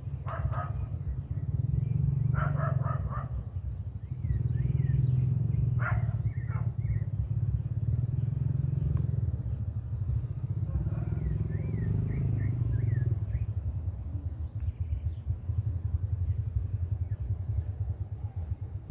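Outdoor field ambience: an uneven low rumble, with a steady high insect drone above it. A few short bird calls come near the start and again about six seconds in, and quick chirps follow later.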